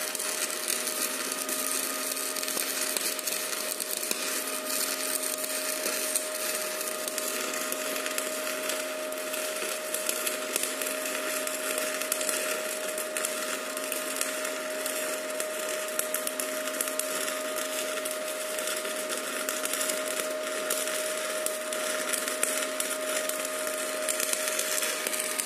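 Stick-welding arc from a Fubag IR-200 inverter welder, crackling and sizzling steadily as the electrode burns, with a steady thin whine underneath.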